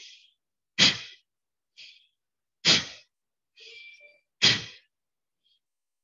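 Surya Kriya breathing through one nostril: three sharp, loud forced exhales about two seconds apart, each with a fist thumping the chest, and quieter sniffed inhales between them.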